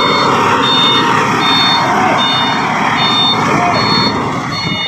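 Truck reversing alarm beeping about twice a second over a running heavy truck engine.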